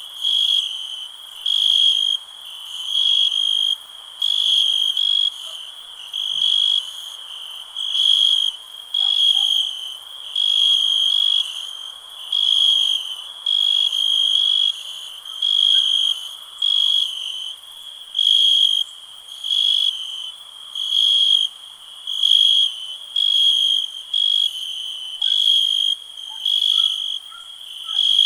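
Cricket chirping, a high-pitched trill repeated in short bursts about once a second, over faint background noise.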